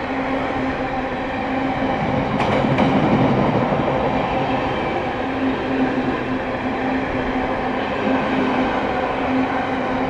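Train running with a steady droning tone. A louder, noisier rumbling swell with a couple of short clicks comes about two to three seconds in.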